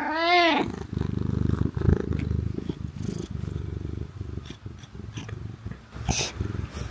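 Black cat gives one short meow that rises and falls, then a loud, low, rattling purr-like rumble for about three seconds that fades out. The owner finds the sound strange.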